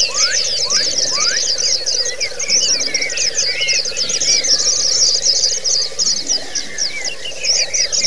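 Several white-eyes (pleci) singing a dense, unbroken stream of rapid high chirps and trills, the continuous rolling song keepers call ngerol. Lower rising whistles come in about once a second, over a steady low hum.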